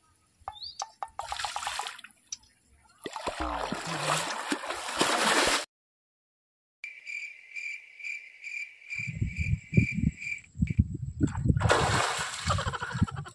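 Pond water splashing in bursts as a person wades in and throws water with his hands; the loudest splash comes near the end. In the middle the sound cuts out, then a high pulsing tone of about two or three pulses a second plays for a few seconds over low, irregular thumps.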